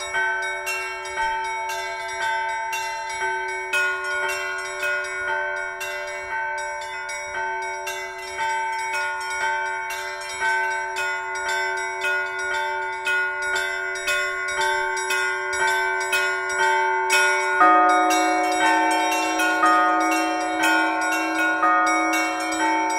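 A set of new church bells ringing in a fast, steady pattern of strikes, several bells at different pitches sounding over one another. About three-quarters of the way through, a deeper bell joins and keeps ringing beneath them, changing the pattern.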